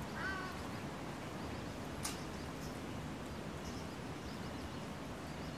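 Outdoor ambience: a steady low background hiss, with a short bird chirp right at the start and a single sharp click about two seconds in.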